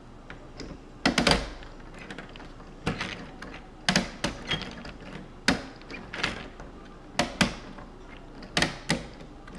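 Plastic parts of a VEX Robotics ball machine clacking as it is worked: irregular sharp knocks, often in close pairs, about one a second.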